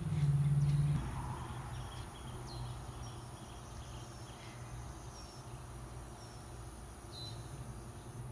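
Outdoor evening ambience: insects trill steadily with a high, even tone, and a few short bird chirps sound now and then. A steady low hum runs underneath and is louder for about the first second.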